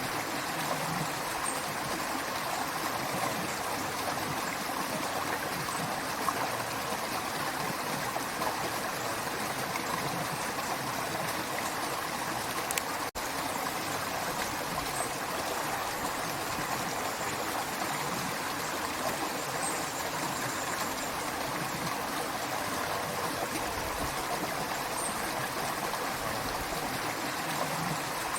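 Creek water running in a steady, unbroken rush, with a momentary dropout about halfway through.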